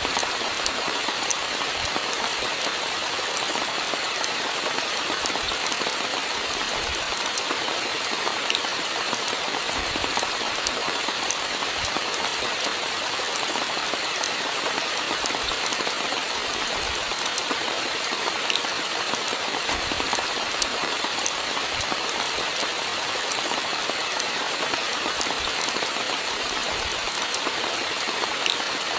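Steady rainfall, with many individual drops ticking sharply through the even hiss of the rain and a few soft low thuds now and then.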